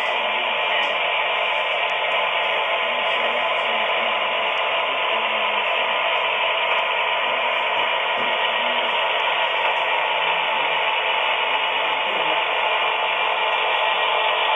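HO scale model diesel locomotive and circus train running on the layout: a steady hissing drone with almost no bass.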